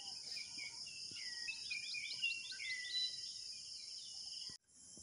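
Evening chorus of insects: a steady high-pitched buzz, with a bird calling over it in curving notes and then a quick run of short rising notes, about five a second. The sound cuts off abruptly near the end and a quieter insect buzz starts again.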